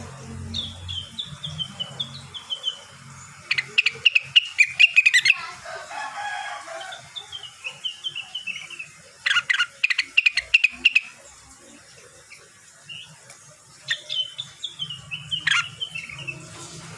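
A rengganis (cucak wilis) songbird singing, still in song while moulting. Three times it gives a phrase of quick notes stepping down in pitch, and in between come bursts of rapid sharp sounds.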